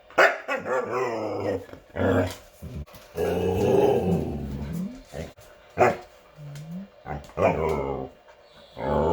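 Huskies 'talking': a string of several growly, drawn-out vocalizations whose pitch bends up and down, broken by a few short sharp yelps and one quieter rising whine.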